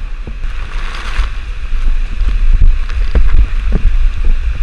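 Steady roar of the Skógafoss waterfall, with heavy wind buffeting on the microphone from the spray.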